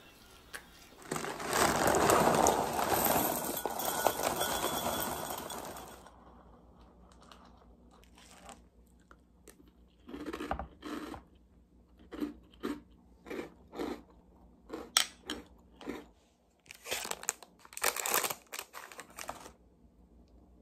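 About five seconds of loud rustling and rattling, then Coco Ball chocolate cereal being crunched in the mouth in short crisp bites, roughly two a second.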